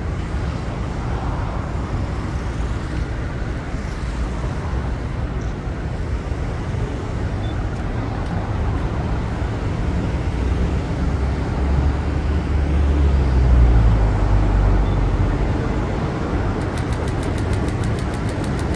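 Steady urban traffic noise, with a low rumble that swells through the middle as a JR West 103 series electric train approaches. A fast run of light, even clicks comes in near the end.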